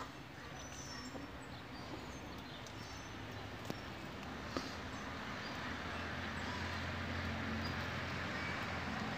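Faint outdoor background with a few faint high chirps and two light clicks near the middle; a low hum slowly grows toward the end.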